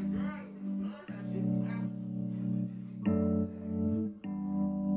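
Background music: held chords that change about every second or two, with a voice over them.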